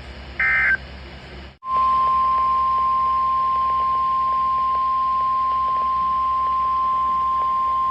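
A short screeching EAS SAME data burst, the kind that marks the end of a weather radio message. After a brief gap comes the NOAA Weather Radio 1050 Hz warning alarm tone, a single steady high tone starting about two seconds in.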